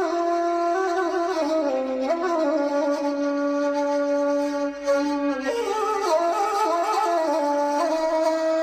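A woodwind instrument playing a melody of long held notes that step up and down in pitch.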